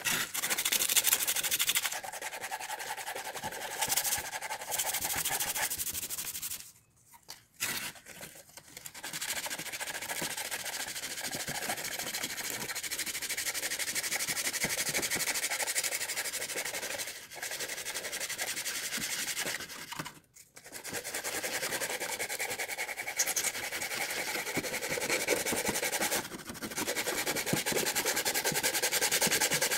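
Old weathered wood being worked by hand with sandpaper and a hand scraper. Steady, rapid back-and-forth rubbing and rasping breaks off briefly twice.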